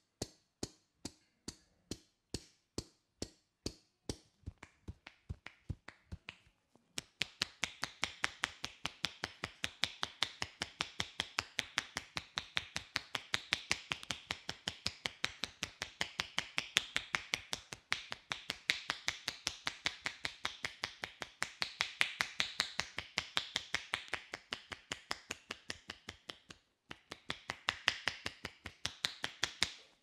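Barber's hands striking the top of a man's oiled head in a rhythmic percussive head massage, sharp slaps at about three a second, then a faster, continuous run with a light rustle between the strikes, pausing briefly near the end.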